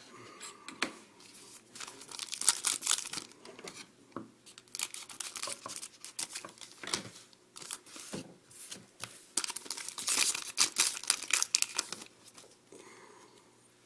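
Hockey card pack wrappers being torn open and crinkled by hand, in repeated bouts of crackling, loudest about ten seconds in.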